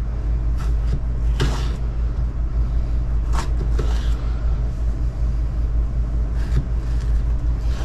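Kitchen knife cutting a tomato on a wooden cutting board, with a few scattered sharp knocks of the blade against the board. Under it runs a steady low hum, louder than the knife.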